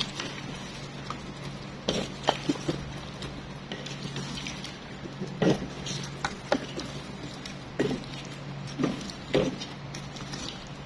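A wooden spoon stirring a thick goat-meat and potato curry in a metal pot: irregular knocks and scrapes of the spoon against the pot, with soft squishing, over a steady low hum.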